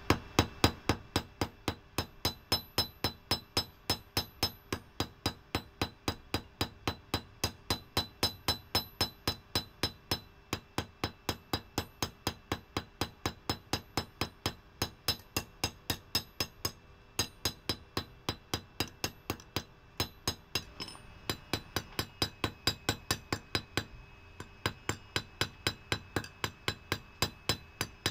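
Hand forging: a hammer striking a red-hot leaf-spring steel blank on an anvil, about three blows a second, each with a metallic ring, with a few short pauses between runs of blows.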